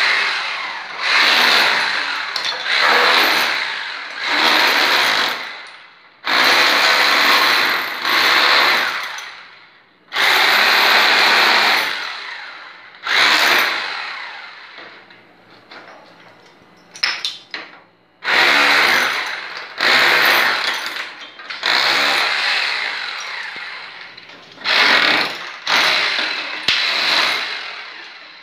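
Corded electric power tool worked into wall tiles to break them loose, run in about a dozen short bursts of one to two seconds, each winding down as it is released. There is a quieter stretch about halfway through.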